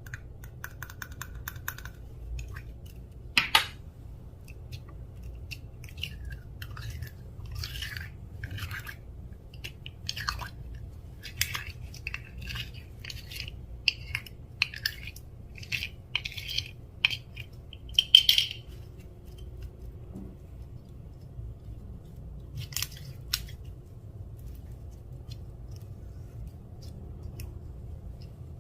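Clear slime being worked by hand: irregular sticky crackles and squelches, busiest about a third to two thirds of the way in and thinning out near the end, over a low steady hum.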